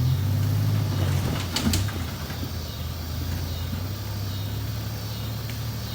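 A vehicle engine running steadily with a low, even hum, with a few sharp clicks in the first two seconds; it eases a little quieter after about two seconds.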